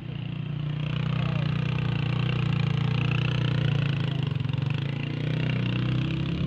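Motorcycle engine running steadily, a low even drone that grows a little louder about a second in and then holds.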